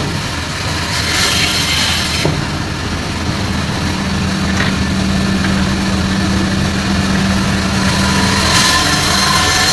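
Band saw running steadily, a constant hum with its blade cutting through a whole salmon as it is fed lengthwise into it.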